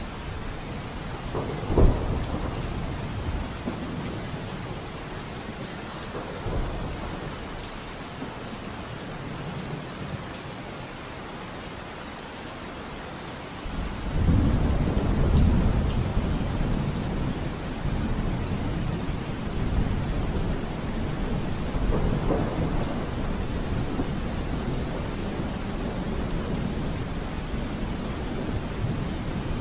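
Rain falling steadily with thunder. A sharp clap comes about two seconds in, and a long low rumble rolls in about halfway through and lasts several seconds.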